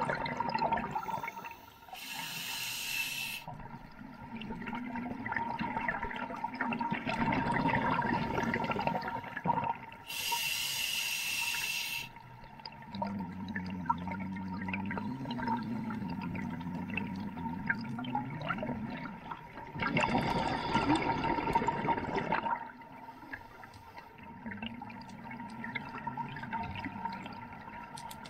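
Scuba diver breathing through a regulator underwater: a hissing inhalation about 2 seconds in and again about 10 seconds in, with gurgling exhaled bubbles in between, loudest about 20 seconds in. A faint steady tone runs underneath.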